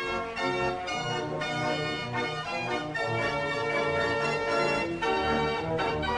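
Background organ music playing held chords that change every second or so.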